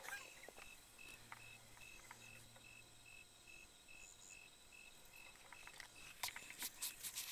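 Faint cricket chirping steadily at one pitch, about three chirps a second. A few sharp clicks and taps near the end.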